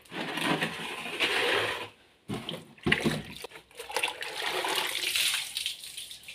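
Water pouring and splashing onto a floor being washed, in two long gushes with a sharp knock between them about three seconds in.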